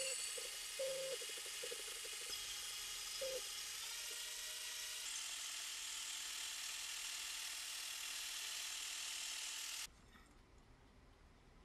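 Cordless drill spinning a felt buffing wheel against a clear plastic meter window, polishing it: a steady whirring hiss that cuts off abruptly near the end.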